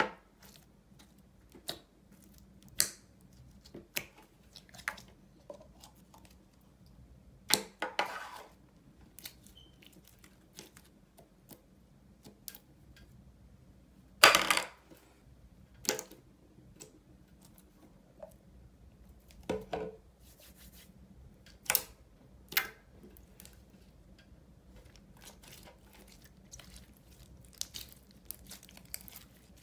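Clear red slime being squished and poked by hand, making scattered sticky clicks and pops, thicker near the end, with a few louder crackling bursts, the loudest about halfway through.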